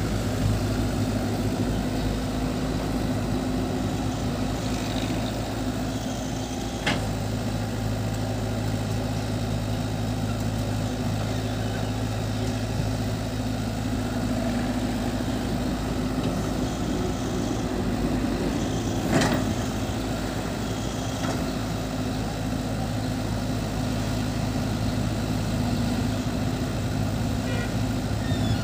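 Cat 313 excavator's diesel engine running steadily as it digs and loads, with two brief sharp knocks, about seven seconds in and again near the twenty-second mark.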